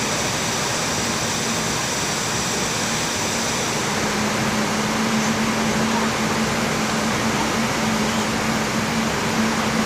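Airbus A320 flight-deck noise in flight: a steady rushing hiss of air and ventilation with a steady hum that grows stronger about four seconds in.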